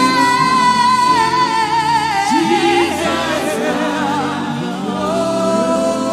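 Live gospel worship singing: a lead voice holds a long high note with vibrato, then a second long note, over steady backing music.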